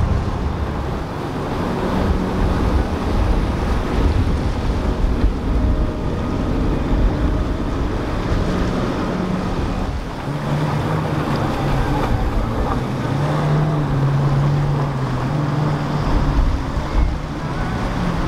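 Flybridge motor yachts' inboard engines droning steadily as they run through rough inlet water, with waves and hull spray rushing and splashing. Wind buffets the microphone with a low rumble. About ten seconds in the engine drone changes to a lower, stronger hum.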